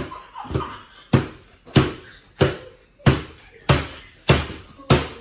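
A steady run of about nine heavy thumps, evenly spaced a little over half a second apart: something being pounded or bounced against a hard surface over and over.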